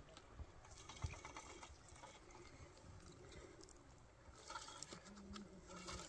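Near silence: faint outdoor quiet with scattered light clicks and one slightly louder knock about a second in.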